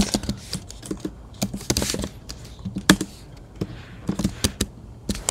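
Typing on a computer keyboard: irregular keystroke clicks as a line of code is entered.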